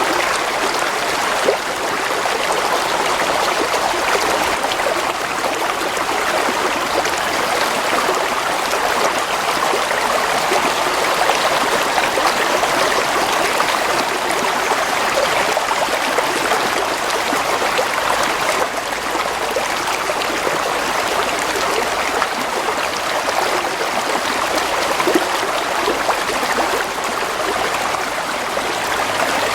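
Shallow stream of water flowing and burbling steadily, an even rushing hiss with fine trickling detail.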